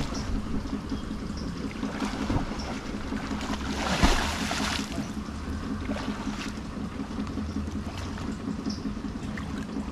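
Men wading through chest-deep muddy water, sloshing. About four seconds in comes a loud splash as the water is slapped to drive fish toward the net. A steady low hum runs underneath.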